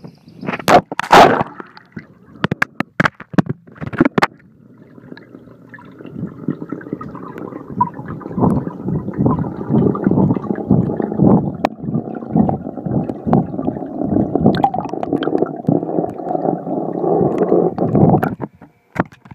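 Water sound heard by an iPhone's microphone sealed inside a waterproof case under a swimming pool's surface: a muffled, gurgling rumble that swells and pulses. It opens with a few sharp knocks and a loud splash as the phone goes in, and stops suddenly near the end as it is pulled out.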